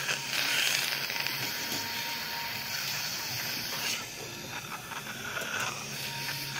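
Dental suction tube hissing steadily as it draws air and saliva from the mouth, easing somewhat about four seconds in.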